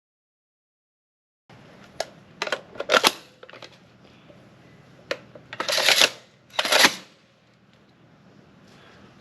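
Sharp metallic clicks and clacks of a Barrett M107A1 .50 BMG rifle being handled. After a silent start, several short clicks come about two to three seconds in, then two louder, longer clacks near the middle and a moment later.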